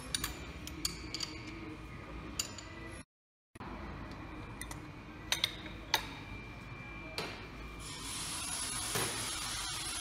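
Scattered sharp metallic clicks and clinks of steel tool parts being handled and fitted against a tractor's hydraulic lift housing, over a steady background hiss that grows louder in the last two seconds. The sound cuts out briefly about three seconds in.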